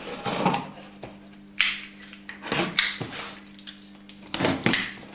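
A cardboard box being opened and its packaging handled: a series of short scrapes and rustles with sharp knocks, about one every second.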